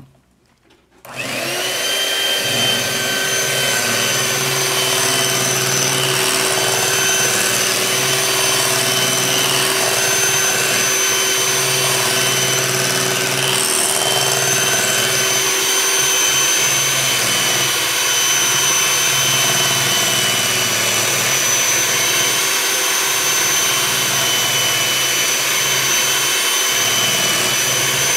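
Electric hand mixer switched on about a second in, spinning up with a short rising whine and then running steadily, its beaters churning a bowl of sugar, canola oil and egg being creamed.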